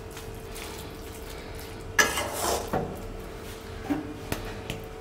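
Metal spatula stirring mashed potatoes in a steel pot, scraping and knocking against the pot a few times, the loudest knock about two seconds in, over a faint steady hum.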